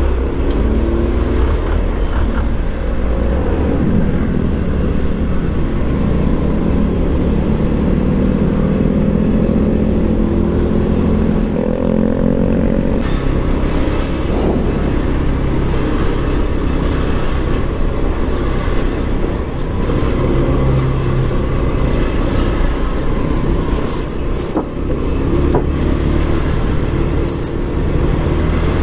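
Motorbike engine running as it is ridden at low speed through traffic, its pitch rising and falling with the throttle over a heavy low rumble.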